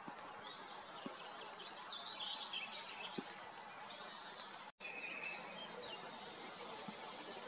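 Small birds chirping and calling over a steady outdoor background hiss, the chirps thickest in the first few seconds. The sound drops out completely for a split second just under five seconds in, where the recording is cut.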